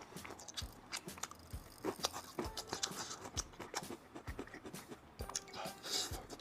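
Close-miked eating: biting and chewing, with many quick, irregular crunchy mouth clicks.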